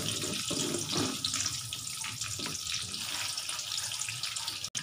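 Sliced onions and urad dal sizzling in hot oil in a wok, a steady hiss with small crackles, as a wooden spatula stirs them. The sound briefly drops out just before the end.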